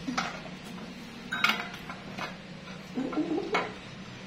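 A spoon clinking and tapping against a dish while ice cream is eaten: several sharp clinks spread out, the loudest about a second and a half in.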